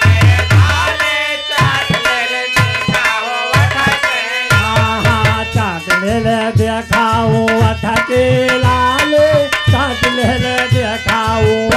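Instrumental passage of a Holi folk song: a harmonium plays the melody over a dholak's rhythm. About a second and a half in the dholak drops back for a few seconds, then picks up a steady beat again.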